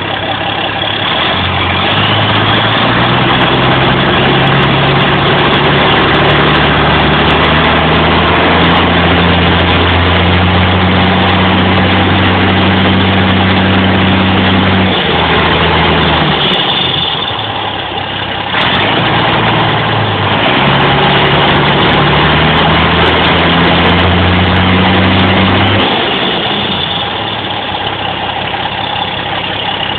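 John Deere 4440's turbocharged six-cylinder diesel running with no muffler, the exhaust open. It idles, is revved up about two seconds in and held high for some twelve seconds, drops back to idle, then is revved and held again for about seven seconds before settling back to idle.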